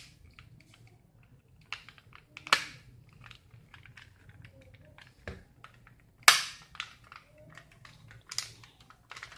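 Plastic toy pistol being worked by hand as its spring and slide are fitted back together: a scatter of small plastic clicks and rattles, with three sharp snaps, the loudest a little past the middle.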